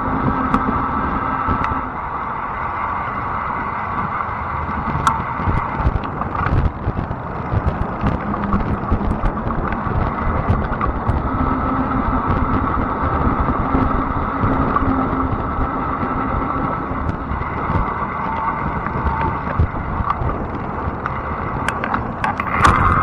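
Fat-tire electric bike riding on pavement: a steady whine that comes and goes over the constant rumble of the tires, with a few small clicks from bumps.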